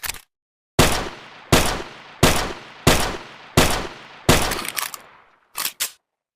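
Makeshift M1911 pistol sound effect: a short click, then six gunshots in a steady series, about three shots every two seconds, each with a fading tail. Two quick clicks follow near the end.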